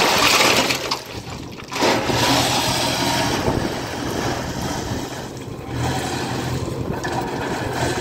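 Crushed limestone pouring and rattling from a JCB 3DX backhoe bucket into a truck bed, a noisy rush loudest at the start and again from about two seconds in. Under it the backhoe loader's diesel engine runs steadily under hydraulic load.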